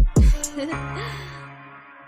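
Hip hop beat: a deep bass hit right at the start, then the drums drop out and a held chord slowly fades away.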